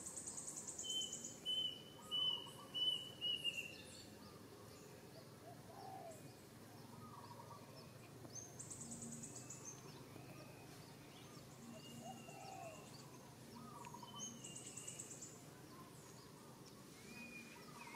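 Several birds calling: a run of about six quick repeated notes in the first few seconds, the loudest sound, then lower calls every couple of seconds and a buzzy high trill three times.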